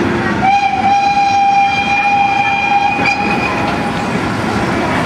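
A locomotive whistle sounds one steady blast of about three seconds, over the rumble of old passenger carriages rolling past on the track.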